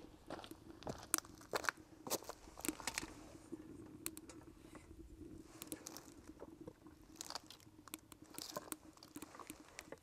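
Wood fire crackling in a cement rocket stove, with irregular sharp snaps scattered throughout.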